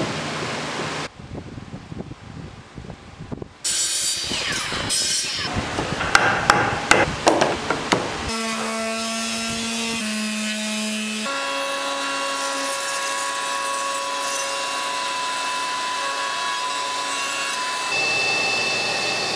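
A run of shop sounds: steady fan noise, then light knocks of wood on wood, then a louder stretch of rasping and knocking on wood. From about eight seconds in, an electric palm sander and then a router run steadily, the motor note changing pitch several times.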